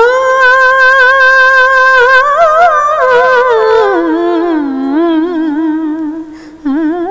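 A woman singing unaccompanied: a long wordless note held with vibrato, then sliding down to a lower held note about four seconds in, the opening phrase of a Malayalam film song.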